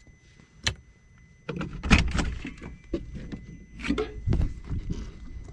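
Camper van door being unlatched and opened: a sharp click under a second in, then a low rumble with a series of knocks and thumps.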